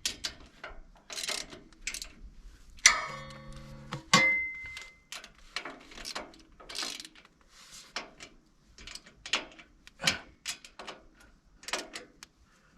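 Ratchet wrench tightening the mounting hardware on a tractor's backhoe attachment: repeated short rasping ratchet strokes at uneven intervals, with a brief ringing metal tone about three seconds in.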